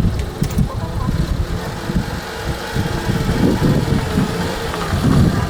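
A small engine running, with uneven low rumbling throughout.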